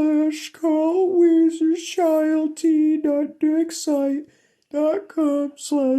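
A high-pitched voice chanting syllable after syllable on an almost unchanging note, half sung and half spoken, with hissing 's' sounds and a short break about four and a half seconds in.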